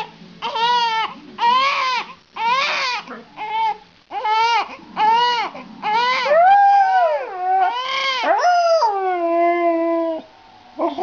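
A baby crying in repeated short wails while a husky howls along. Longer gliding tones come in the second half, the last one held and falling before it stops about ten seconds in.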